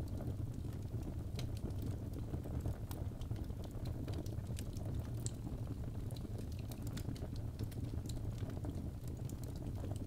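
Wood fire burning in a fireplace: a steady low rush of the flames with scattered sharp crackles and pops from the logs.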